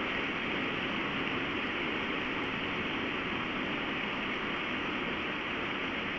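Powerful wind storm: a steady, even rushing noise that does not let up.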